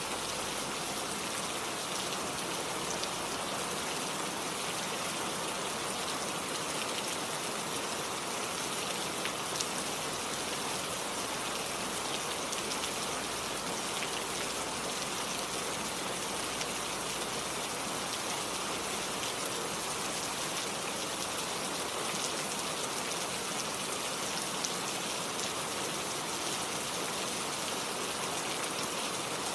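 Steady rain falling: an even hiss with scattered sharp drop ticks, unchanging throughout.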